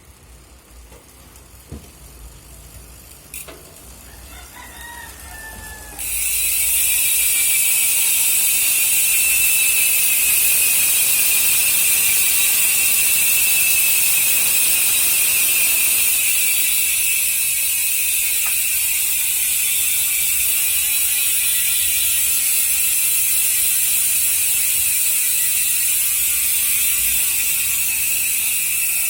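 Speedone Soldier six-pawl bicycle rear hub freewheeling. A few scattered clicks come first, then about six seconds in a loud, continuous ratcheting buzz starts as the wheel spins, falling slowly in pitch as it coasts.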